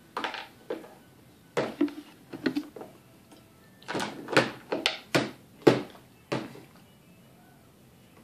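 Plastic sippy cup knocked and banged on a plastic high chair tray: a dozen or so sharp, irregular knocks in two flurries, then stillness near the end.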